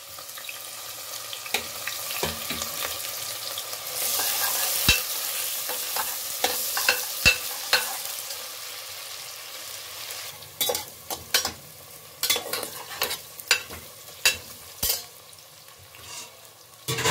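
Thinly sliced onions sizzling as they fry in hot oil in a pressure cooker, stirred with a metal slotted spoon. The spoon scrapes and clacks against the pot, the clacks coming thick in the second half.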